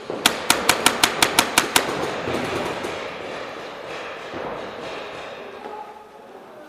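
Paintball marker firing a rapid string of about ten shots in under two seconds, six or seven a second, echoing in a large hall. After the string the hall's background noise carries on, with no further shots.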